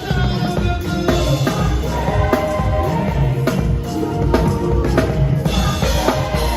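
Live drum kit played hard, with busy kick drum, snare and cymbal strokes. Other instruments hold pitched notes under it.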